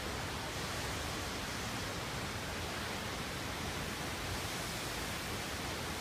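Itiquira Falls, a high waterfall, rushing steadily.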